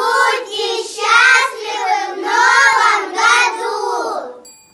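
A group of young children singing together in unison, in several long held phrases that stop shortly before the end.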